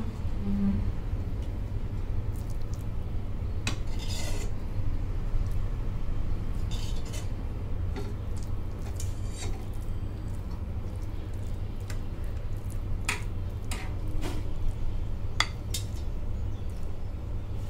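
A steel spatula clinking and scraping against a glass dish while spreading and pressing soft halwa level, a scattered series of light clinks over a steady low hum.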